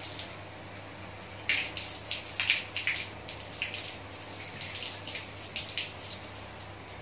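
Water splashing and dripping in a small tiled room: a run of irregular wet spatters begins about a second and a half in and thins out near the end, over a steady low hum.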